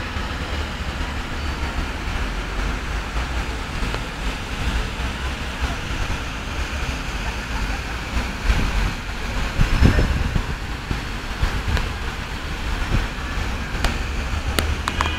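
Steady outdoor city-square wash: a large fountain's falling water and distant road traffic, with wind rumbling on the microphone throughout. There are a few faint clicks near the end.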